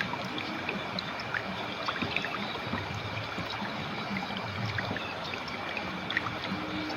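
Clear river water flowing steadily over stones: an even rush dotted with many small splashing, trickling droplets.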